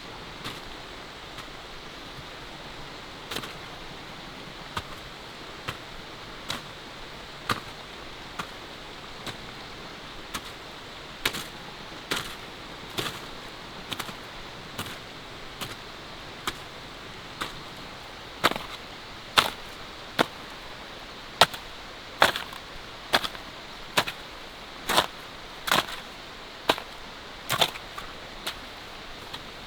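A series of sharp, single strikes, about one a second and louder in the second half, over a steady hiss.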